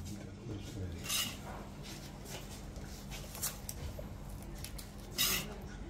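Metal serving spoon and skimmer scraping and clinking on a ceramic plate as pilaf is scooped and heaped onto it: a few short scrapes, about a second in, at three and a half seconds and near the end, over a steady low hum.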